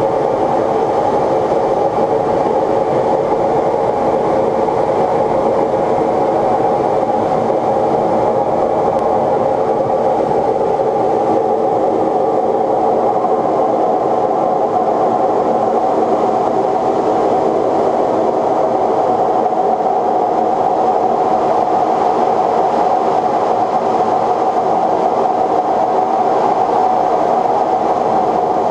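F/A-18 cockpit noise in flight: a loud, steady drone of jet engine and airflow that holds level without change.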